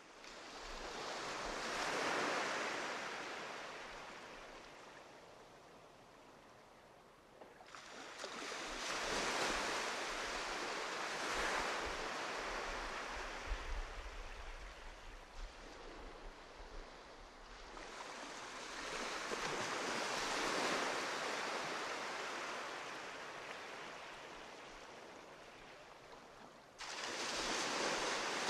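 Ocean waves surging in and falling away in slow swells about every nine seconds, with a sudden rise in the surf about a third of the way in and again near the end.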